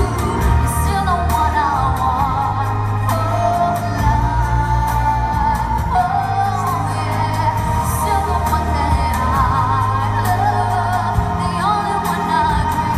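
A woman singing a song into a handheld microphone over a backing track with bass and a steady beat, played through loudspeakers.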